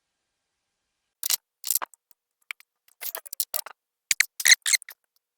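Ratcheting box-end wrench clicking in short groups as a bolt is tightened, starting about a second in.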